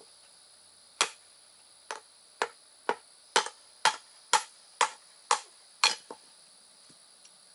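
A hand hammer striking about ten sharp blows, roughly two a second, each with a short ring; the blows stop near the six-second mark.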